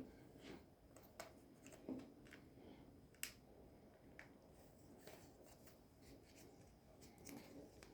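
Faint handling noises of small hand work: scattered light clicks and soft rustles, the sharpest click about three seconds in.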